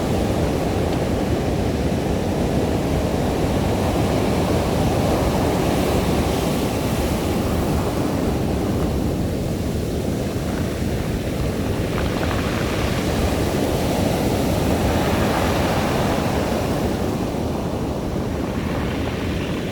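Surf washing over a beach of smooth round pebbles: a steady rush of waves and rolling stones that swells and eases over several seconds.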